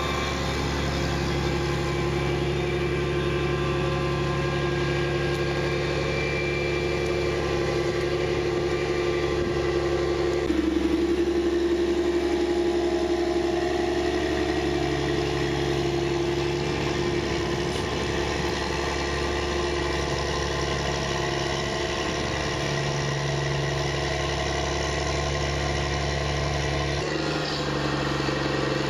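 Challenger rubber-track tractor's diesel engine running steadily as the tractor pushes silage with its front blade. The engine note changes abruptly twice.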